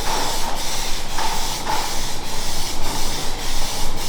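Aerosol spray-paint can hissing in a string of short bursts, about two a second, with brief breaks between them as the paint goes on.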